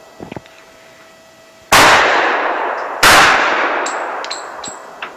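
Two shots from a Dan Wesson Valor 1911 pistol, about a second and a half apart, each with a long echoing decay. After the second shot come a few light, high metallic pings.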